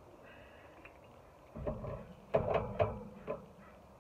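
Hard parts of a brazing torch kit being opened and handled: a dull knock about one and a half seconds in, then a quick run of sharp clicks and knocks a second later.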